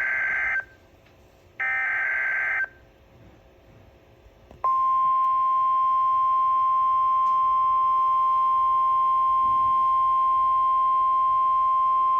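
Emergency Alert System SAME data bursts: two screeching digital bursts about a second long, a second apart. About two seconds later the NOAA Weather Radio 1050 Hz warning alarm tone starts, one loud steady pitch that holds.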